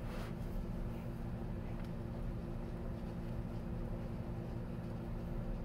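A steady low mechanical hum made of several steady low tones.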